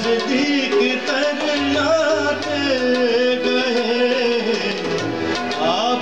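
A live Pakistani film song: a man singing a wavering, ornamented melody over harmonium and electronic keyboard, with tabla keeping the rhythm.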